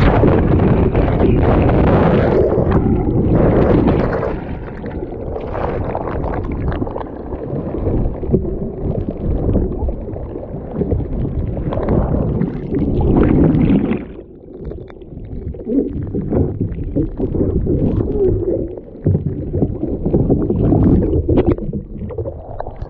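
Ocean surf and water washing around a sea kayak in the surf zone, loud and uneven, surging and easing back about fourteen seconds in.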